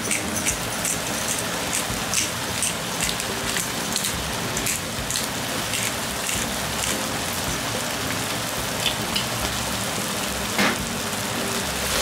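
Thick tomato meat sauce simmering in a frying pan: a steady crackling sizzle with many small pops and spatters.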